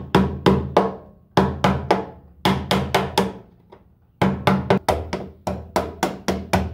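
Quick runs of sharp hammer taps on metal, about four a second, with a short pause between runs.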